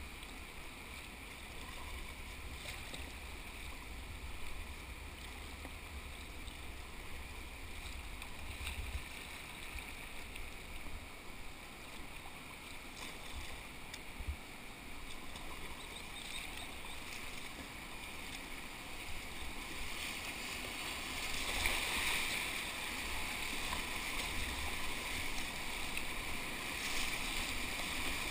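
River water rushing and splashing around a whitewater kayak as it is paddled downstream. The water noise grows louder about two-thirds of the way through as the kayak runs into rapids.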